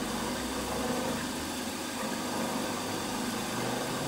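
Milling machine running steadily, a small end mill taking a light finishing pass along a narrow slot in the engine cylinder.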